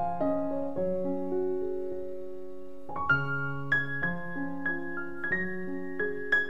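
Slow solo piano background music: held chords and single notes, with the notes coming more often from about three seconds in.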